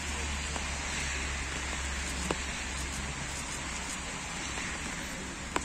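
Light rain falling steadily, an even hiss with a low rumble underneath and two brief clicks, about two seconds in and near the end.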